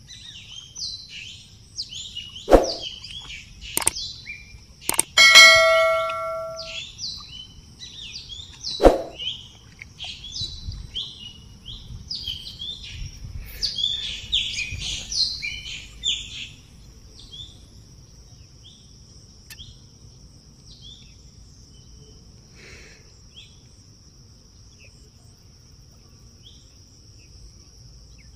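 Birds chirping and calling rapidly, with a few sharp knocks and, about five seconds in, a metallic clang that rings on for over a second. From about sixteen seconds a steady high-pitched drone takes over, with only scattered chirps.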